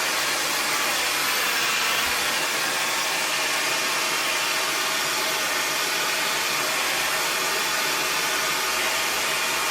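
Handheld hair dryer blowing steadily on its fan, a constant rush of air with a faint whine, being used to blow-dry hair against its natural direction to add volume.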